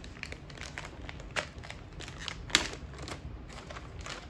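Cardboard motherboard box being unsealed and opened by hand: scattered crackles and clicks, with one sharp snap about two and a half seconds in.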